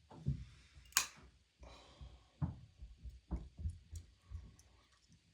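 Irregular clicks, taps and knocks of hand work on a heating unit's ignition parts, with one sharp click about a second in and a run of dull knocks after it.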